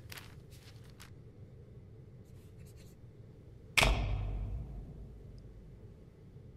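A few short, light scratching strokes. About four seconds in comes one sudden loud, deep boom that rings out and dies away over about a second.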